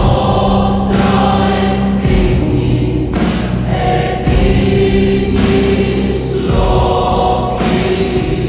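Choral music: a choir singing long held chords over a sustained low bass, changing chord every second or two.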